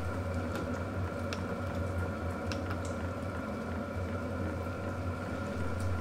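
Portable diesel heater running steadily on its lowest heat setting, burning clean: a steady low hum of the burner and blower with a few faint scattered ticks.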